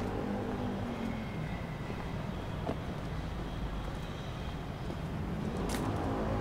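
City street ambience with a motor vehicle's engine running close by, a steady low rumble. A short sharp click near the end.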